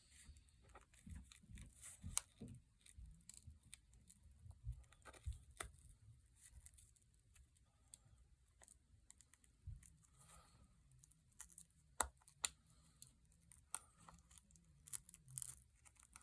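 Faint, scattered small clicks and scrapes of a pry tool working under a small adhesive-backed microphone sensor on a phone's glass back panel, with a few sharper ticks about two seconds in and near twelve seconds.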